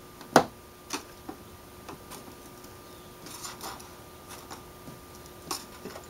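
Scattered sharp clicks and light scrapes of a stiff putty knife being worked along under the top lip of a Saturn S-series plastic outer door skin, prying it loose. The loudest click comes about half a second in.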